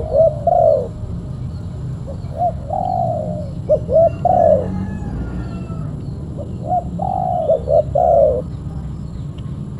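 Spotted dove cooing: three phrases of short arched coos, one right at the start, one from about two and a half to four and a half seconds in, and one from about seven to eight and a half seconds in.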